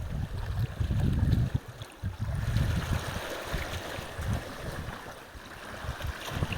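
Ocean surf washing onto a shore: a steady hiss of breaking water that swells near the middle and eases off toward the end. Wind buffets the microphone with a low rumble, strongest in the first second and a half.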